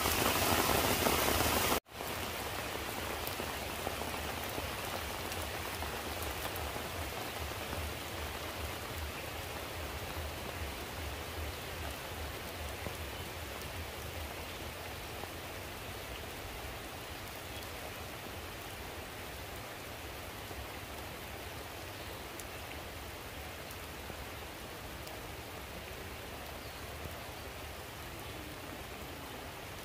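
Rain falling steadily, an even hiss; it is louder for the first two seconds and then drops abruptly to a softer level.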